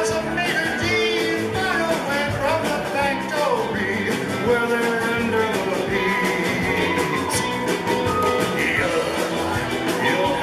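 A live rock band playing, with electric guitar and a drum kit, the melody carried by gliding pitched lines.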